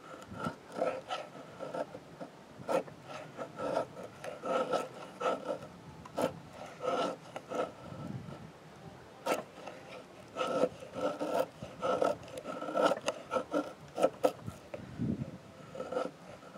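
A carbon-steel Kephart-pattern knife blade shaving curls down a birch stick: a run of short scraping strokes of steel along wood, about one or two a second.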